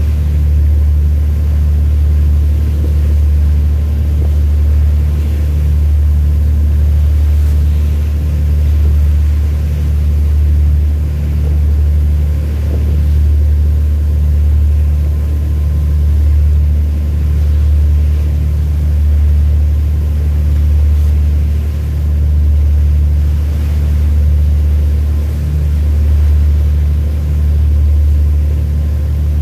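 A large engine's deep, steady drone that swells and fades slowly every second or two.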